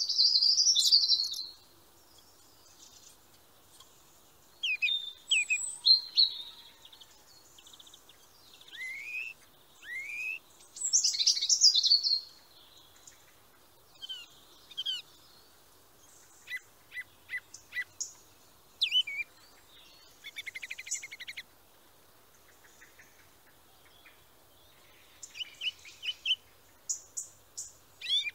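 Songbirds chirping and singing in short, varied phrases separated by pauses, with some rising whistles and a quick trill.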